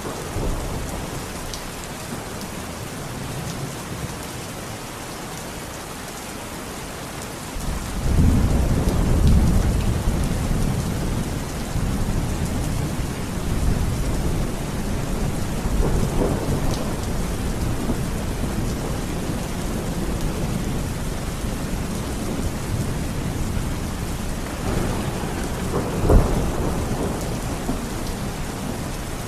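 Steady heavy rain with thunder: a long low rumble sets in about eight seconds in and keeps rolling, with a sharper crack near the end.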